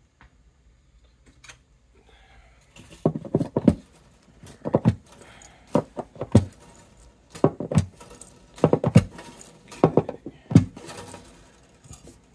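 Short clusters of knocks, clicks and metallic rattles, repeating about every second and a half from about three seconds in, from old strings being taken off a Martin acoustic guitar and clattering against the guitar.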